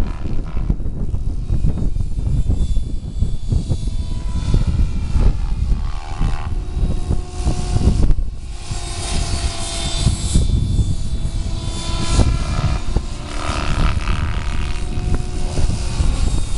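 Gaui X7 electric RC helicopter in flight, its motor and rotor whine rising and falling in pitch as it manoeuvres, under heavy wind buffeting on the microphone.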